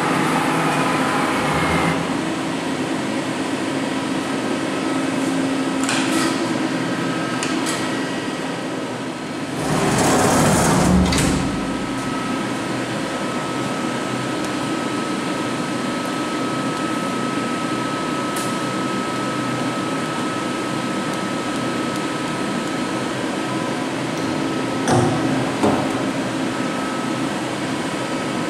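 CNC lathe running, a steady machine hum with a whine that holds from about twelve seconds in to about twenty-four. A louder rushing burst comes around ten seconds in, and a few sharp clicks come near the end.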